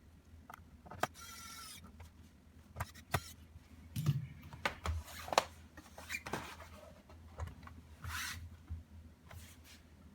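Irregular clicks and knocks with a few short scraping bursts: hands handling a laptop's hard parts.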